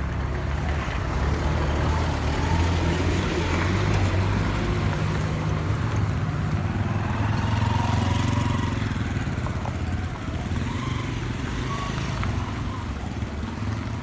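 Motor vehicle engine and road noise: a steady low rumble that swells about a second in and eases off a little after the middle.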